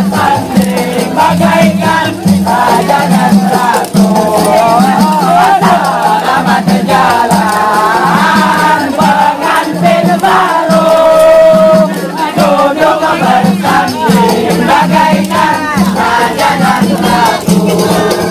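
Hadrah-style troupe of men chanting together over a steady pulsing beat of hand drums, with a rattling, shaking percussion sound throughout.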